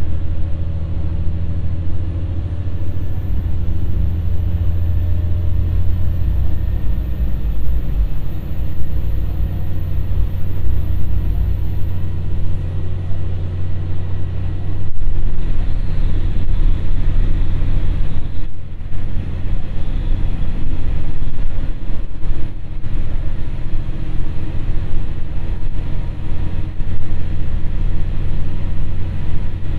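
Ibara Railway IRT355 diesel railcar heard from inside while under way: a steady low engine drone with wheel-on-rail running noise, growing louder about halfway through.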